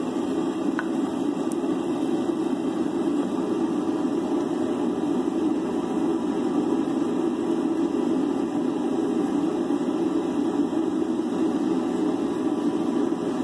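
Gas burner running with a steady roar, unchanging while the heated O1 tool-steel blade sits in the oil quench.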